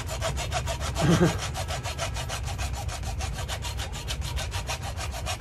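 Hand saw cutting through the hard shell of a painted spiny lobster in fast, even back-and-forth strokes. A brief voice sounds about a second in.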